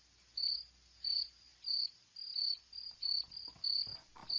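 Crickets chirping at night: short, high-pitched chirps repeating at a steady rhythm, about one and a half per second.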